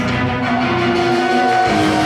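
Recorded music: held, sustained notes, one dropping to a lower pitch about three-quarters of the way through, while the drum beat thins out and then picks up again.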